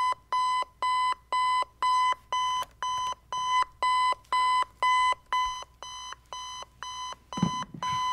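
Electronic alarm clock beeping: short beeps at one steady pitch, about two a second. A brief low sound is heard near the end.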